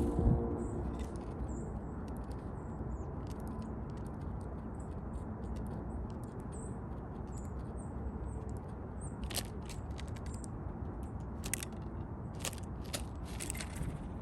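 Woodpecker pecking at food on a feeder: a few sharp taps and crunches, mostly in the second half, over a steady outdoor background with faint high bird chirps.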